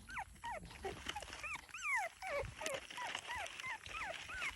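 High-pitched whimpering cries from young animals, several a second and overlapping, each call sliding down in pitch.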